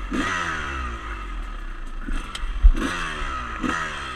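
Dirt bike engine under way, with the revs climbing and then falling away three times. A steady wind rumble sits on the microphone, and a sharp thump comes a little past halfway.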